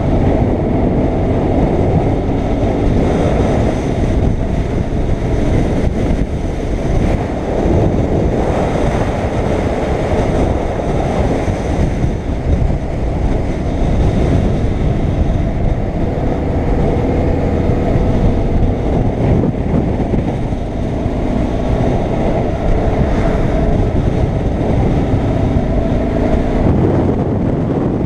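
BMW R850R flat-twin boxer engine running at road speed, mixed with wind rushing over the camera microphone. The engine note drifts a little up and down.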